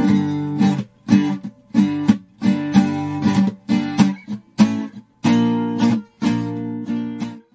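Background music of a strummed acoustic guitar: rhythmic chord strokes with short breaks between phrases, cutting off suddenly near the end.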